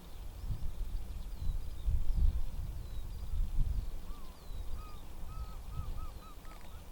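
Wild birds calling: short high chirps throughout, and about four seconds in one bird gives a quickening run of about eight short calls. Under them is a low, uneven rumble, the loudest sound.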